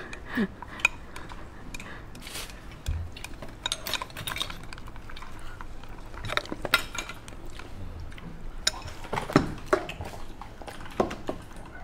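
Chopsticks clinking and scraping against a glass bowl while stirring a chili-oil dipping sauce, in irregular light taps and clicks.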